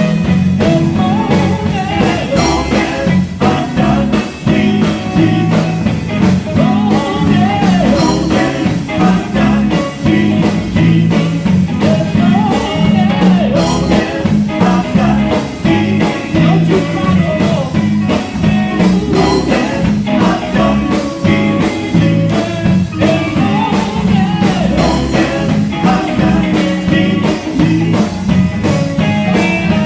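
Live gospel band music: electric guitar over bass and a drum kit keeping a steady beat, with singing.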